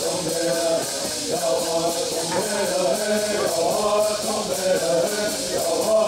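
A group of bird singers chanting a Southern California bird song together in unison, with gourd rattles shaken in a steady, even rhythm.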